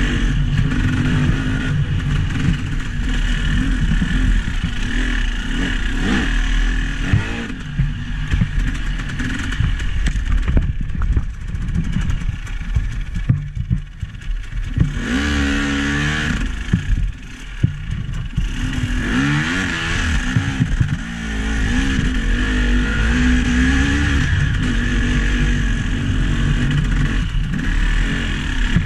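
A motor vehicle's engine running and revving, its pitch rising and falling several times through the middle of the stretch, with scattered knocks and rattles.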